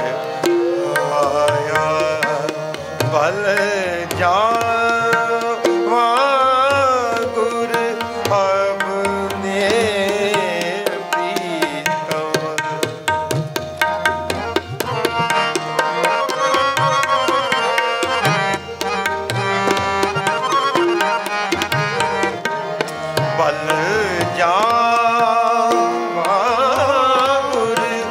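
Sikh shabad kirtan: tabla played in a steady rhythm under harmonium, with a man's voice gliding through the melody.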